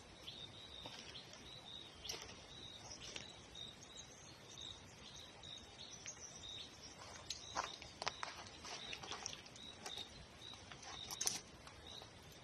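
Faint outdoor ambience with a small animal's high chirp repeating about three times a second, and scattered clicks and knocks, the loudest near the end.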